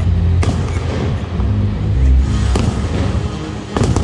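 Aerial fireworks bursting with sharp bangs about half a second in, at about two and a half seconds and again near the end, over music with a heavy bass line.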